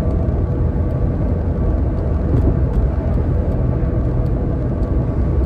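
Steady low rumble of a car or truck being driven: engine and road noise.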